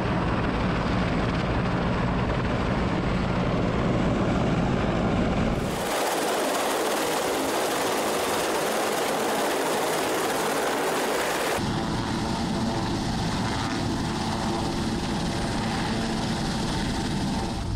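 Large military helicopters' turbine engines and rotors running on a ship's flight deck. The sound changes abruptly about six seconds in, from a steady low running sound to a loud even rushing hiss, and again about twelve seconds in, back to a steady engine sound with low tones.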